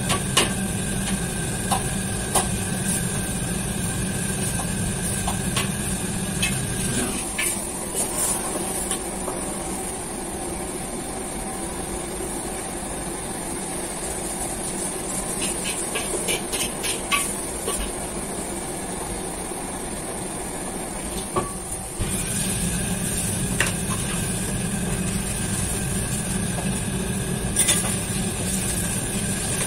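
Restaurant kitchen noise: the steady drone of the extractor hood and wok burners, with scattered clinks and clatter of a metal ladle, pans and foil trays. The low rumble eases off for a long stretch in the middle and comes back near the end.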